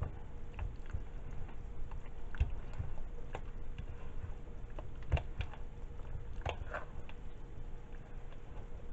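A spatula stirring and folding thick, creamy chicken pot pie filling with peas in a bowl: wet squelching with irregular taps and scrapes against the bowl.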